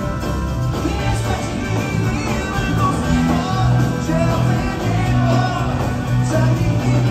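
Live rock band playing through a concert PA, with bass, drums, guitars and keyboards under a sung melody, heard from within the crowd in a large hall.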